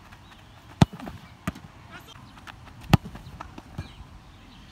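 Two hard, sharp thuds of a football being kicked in a shot, about two seconds apart, with a fainter thud and light running footsteps between them.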